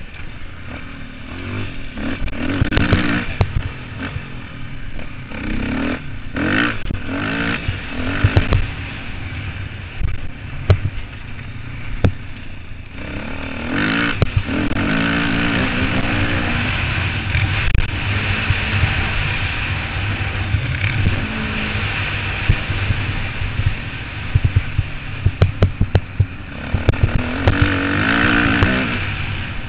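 Motocross bike engines revving, the pitch rising and falling over and over as the throttle opens and closes, over a steady rushing noise.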